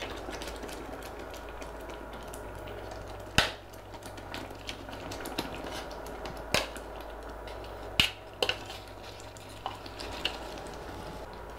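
Boiled, mashed potatoes tipped from a plastic strainer into a pan of simmering gravy, with a few sharp knocks against the pan over a steady low hum.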